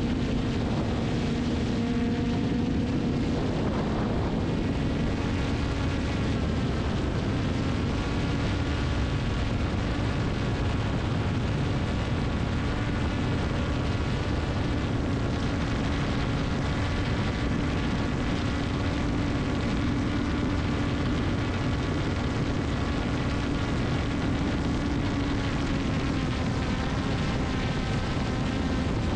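Multicopter drone's motors and propellers humming steadily: a droning tone over rushing air, its pitch shifting slightly a few seconds in.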